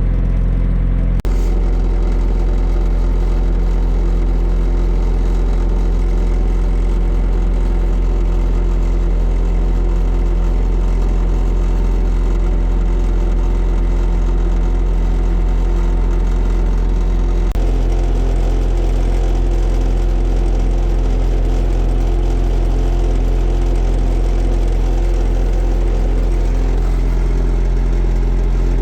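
Diesel engine of a Bobcat skid steer idling steadily while it warms up after a cold start, its tone shifting abruptly about a second in and again a little past halfway.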